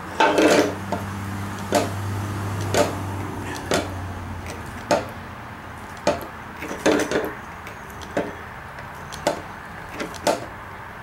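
Hand lever grease gun pumped into the Zerk fitting on a mower-deck blade spindle, greasing the spindle bearing: a sharp clack with each stroke, about one every one to two seconds. A low steady hum sits under the first few seconds.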